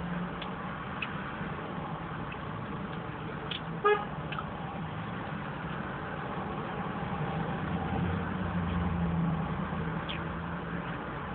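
One short car-horn toot about four seconds in, over a steady low hum of idling vehicle engines. A deeper vehicle rumble swells for a couple of seconds near the end.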